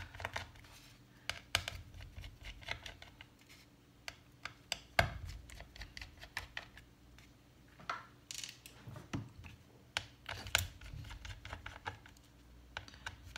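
Small irregular clicks and taps of a T5 Torx screwdriver on the tiny screws holding a MacBook Pro's trackpad as they are unscrewed, with a few sharper knocks. A faint steady hum runs underneath.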